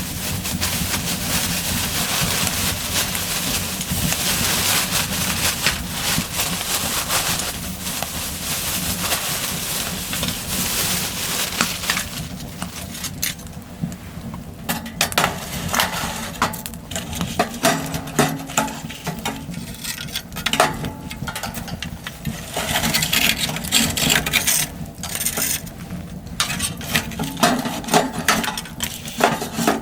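Steady rushing noise for about the first twelve seconds, then a run of irregular clinks and knocks.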